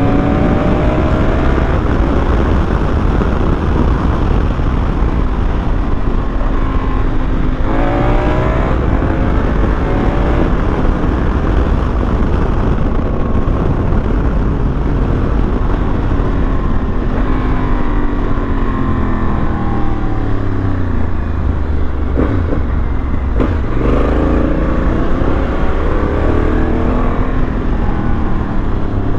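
Honda Africa Twin's parallel-twin engine under way, rising in pitch as it accelerates near the start, about 8 seconds in and about 24 seconds in, and falling away in a long deceleration in between. Steady wind rumble on the riding microphone lies underneath throughout.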